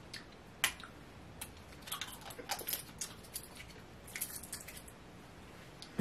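Quiet wet mouth clicks and lip smacks, scattered and irregular, from a person tasting a spoonful of hot sauce.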